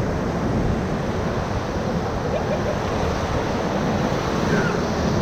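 Whitewater of the Ocoee River rushing steadily around a raft running a rapid, with some wind on the microphone.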